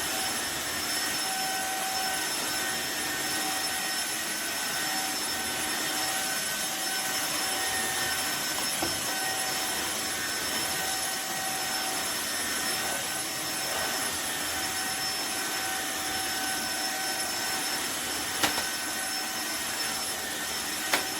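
Tineco iFLOOR 3 cordless wet-dry floor cleaner running steadily: a high motor whine over a rushing suction noise, with a couple of brief clicks near the end.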